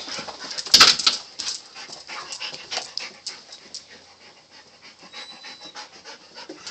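Excited dogs panting and moving about, with many short irregular clicks and rustles and one sharp knock about a second in.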